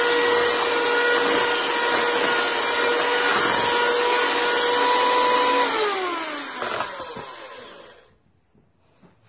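Bella 10-speed electric hand mixer running steadily with a constant whine, its beaters working flour into cake batter. About five and a half seconds in it is switched off and the whine falls in pitch as the motor winds down, fading out by about eight seconds.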